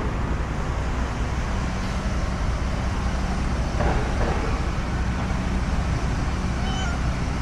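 Steady vehicle and road-traffic noise with a low, even engine hum, plus a faint short sound about four seconds in.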